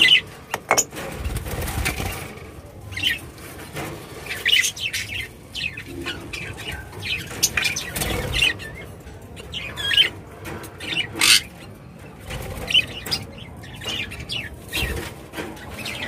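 Budgerigars in a wire breeding cage flapping their wings and giving repeated short chirps, with knocks and rattles from the cage wire being handled.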